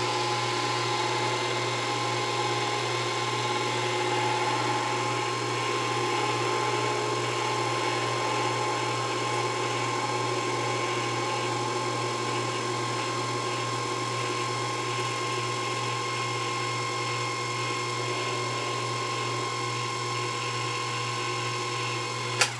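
Proxxon FD 150/E mini lathe running steadily with an even motor whine and hum while a high-speed steel parting tool is fed in to cut off a thin rod. A sharp click near the end.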